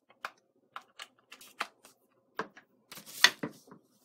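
Cable plugs and leads clicking and rattling as a power cable is handled and plugged in, with a louder clatter about three seconds in.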